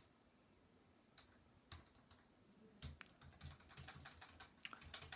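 Faint, irregular small clicks and taps: a few single clicks at first, then several a second from about three seconds in.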